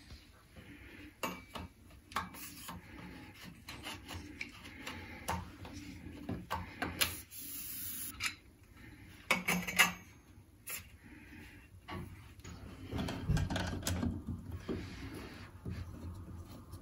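Irregular clicks, taps and scraping from chrome shower rail fittings being handled and fitted against the wall brackets, with a screwdriver working a bracket's small fixing screw; the loudest click comes about ten seconds in.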